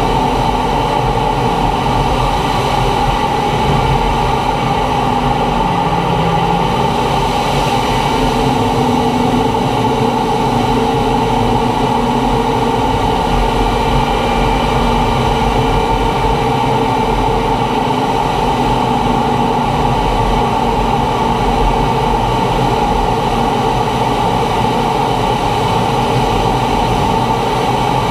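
T-45 Goshawk jet trainer in flight: the steady whine of its Rolls-Royce Adour turbofan mixed with rushing air, holding a constant pitch and level throughout.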